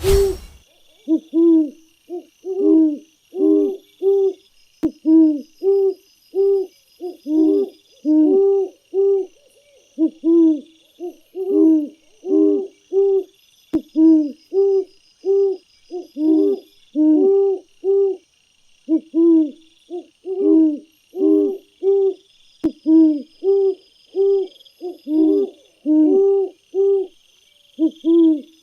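A bird's low hooting calls repeating steadily, about two short notes a second and often in pairs, over a faint steady high-pitched insect chorus.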